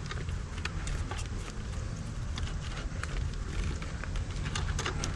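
Scattered light clicks and rustles as an e-bike's aluminium motor controller and its cables are handled and worked out of the frame bay, over a steady low rumble.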